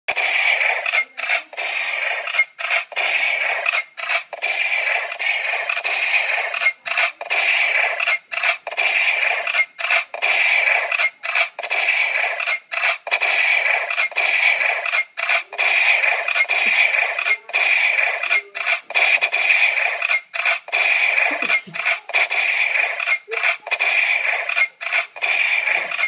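Electronic sound effects played through a toy gun's small speaker: a continuous noisy electronic blare, cut off briefly once or twice a second.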